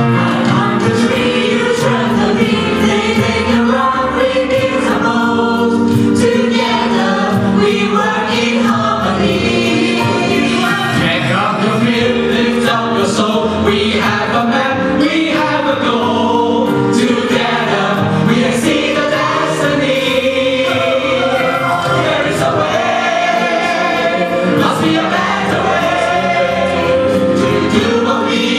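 A choir singing a song with musical backing.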